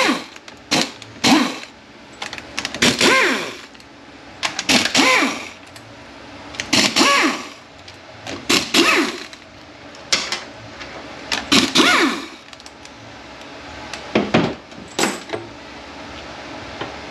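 A power tool running in about ten short bursts, its pitch bending up and down in each, as it spins out the E12 Torx bolts on an automatic transmission's oil pan.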